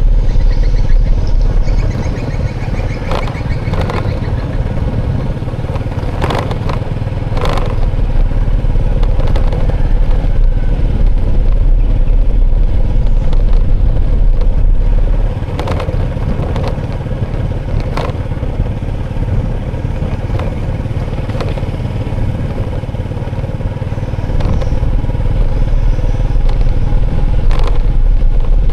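Motorbike and road-traffic noise, a steady engine-and-road rumble that swells and eases in long stretches, with scattered sharp clicks and clatters.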